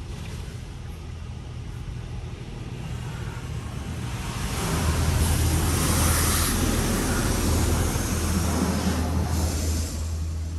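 High-pressure water jets of a PDQ Laserwash 360 Plus touch-free car wash spraying the car, heard from inside the cabin as a hiss over a steady low hum. The spray grows louder about four seconds in as the jets reach the car, then eases slightly near the end.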